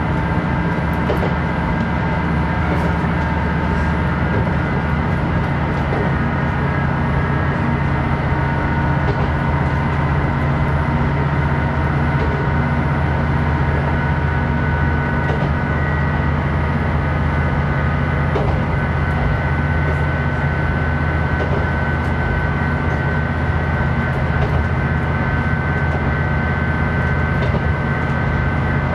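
Diesel railcar of the Hitachinaka Seaside Railway running steadily along the line: a constant engine drone with wheel and rail noise and occasional faint clicks.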